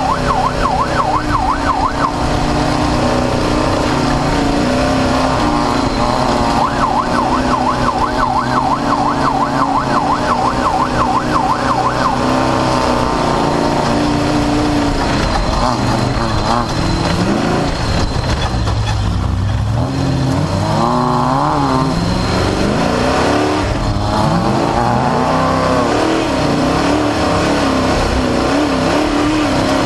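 An off-road race vehicle's engine runs hard, its revs rising and falling. A fast warbling, siren-like alarm tone sounds twice over it: briefly at the start, and again for about five seconds a little later.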